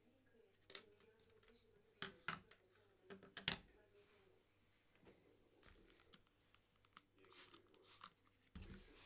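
Faint, irregular light clicks and taps of small hard objects being handled, the loudest about three and a half seconds in.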